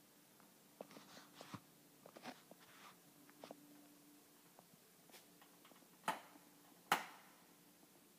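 Scattered light clicks and knocks, with two sharper knocks about six and seven seconds in, over a faint steady hum.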